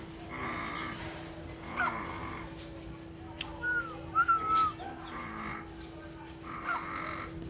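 Mynah bird calling: several rough, noisy calls of about half a second each, with two short whistled notes around the middle.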